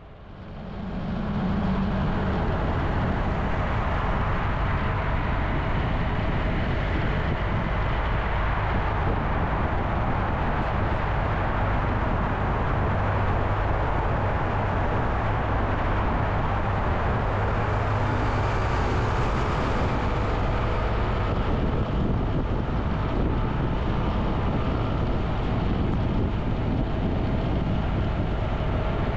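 Riding noise from a motorcycle on the move: a steady rush of wind and road noise over a low engine hum, fading in over the first couple of seconds. Midway the bike passes through a road tunnel.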